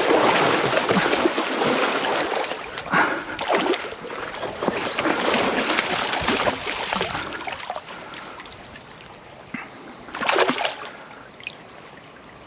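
Hooked brown trout thrashing and splashing hard at the surface of a shallow stream for the first seven seconds or so. It then goes quieter, with one more short burst of splashing about ten seconds in.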